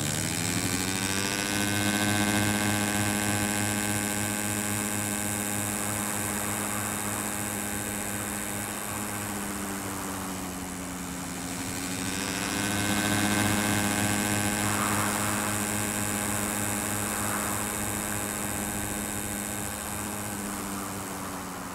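Propeller-plane engine sound, dubbed onto the flight animation. The engine runs at a steady pitch after spooling up, dips lower about ten seconds in, then rises again and holds.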